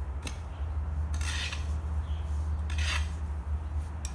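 A garden hoe scraping and dragging through a dry mix of rice husk, coir and soil on a concrete floor, in about three strokes. The longest stroke comes about a second in. A steady low hum runs underneath.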